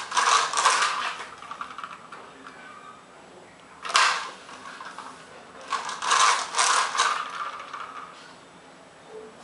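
Plastic toy car rattling and clattering as its wheels are pushed across a ceramic tile floor: a bout of quick clicks at the start, a single sharp knock about four seconds in, and another clattering bout a couple of seconds later.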